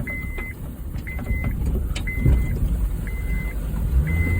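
A Honda Fit's electronic warning chime beeps steadily about once a second, each beep a single tone about half a second long, over the low rumble of the car running on a rough trail with a few faint knocks.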